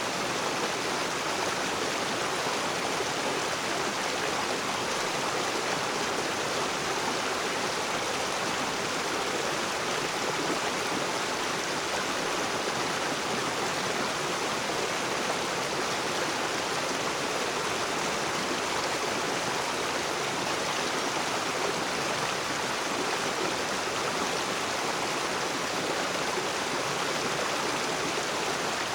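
River water rushing steadily over rocks, an even, unbroken flow.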